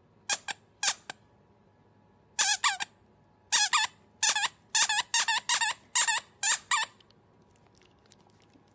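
A dog chomping on a rubber squeaky toy held in its mouth, making a run of short, high squeaks in quick clusters that stop about seven seconds in.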